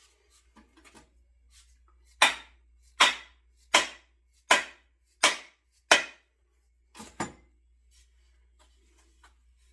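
Six sharp wooden knocks about three-quarters of a second apart, then two lighter ones: a double-bit axe head being driven further down onto its wooden handle to seat it.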